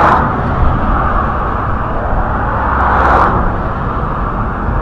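Road traffic going past at speed: a steady rush of tyre and engine noise that swells as vehicles pass, around the start and again about three seconds in.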